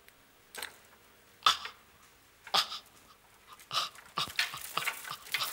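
A man panting and huffing with effort: short breathy puffs about once a second, coming quicker near the end.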